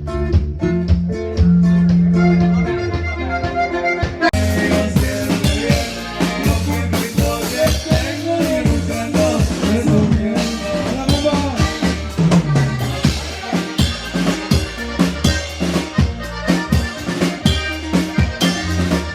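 Band music: a bass line and melody at first, then the drum kit comes in about four seconds in and keeps a steady beat with cymbals.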